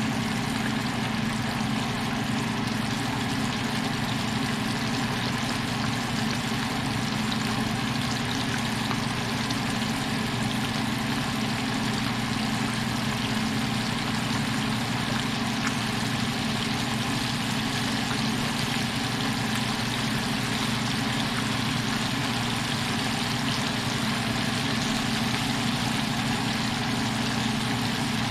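Flour-coated bluegill fillets deep frying in canola oil in a frying pan: a steady, crackling sizzle, with a low hum underneath.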